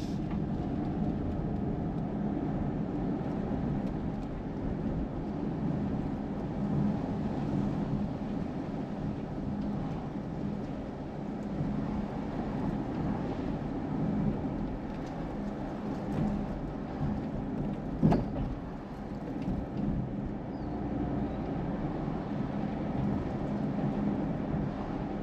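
Car driving on a city street, heard from inside the cabin: a steady low rumble of road and engine noise with a hum underneath. One sharp thump stands out about three-quarters of the way through.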